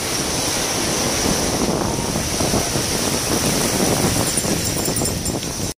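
Steady outdoor noise: a rushing, uneven rumble with a high, even hiss above it, cutting off suddenly near the end.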